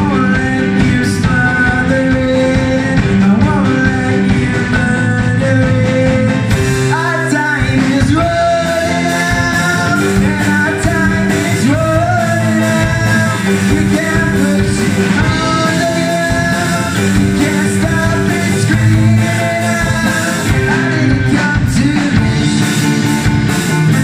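Rock band playing live: a young male singer over electric guitar, Yamaha keyboard and drum kit.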